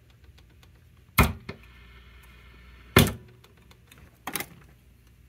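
Three sharp knocks, the first two loudest and about two seconds apart, a third softer one a little over a second later: handling noise from working on the opened radio chassis.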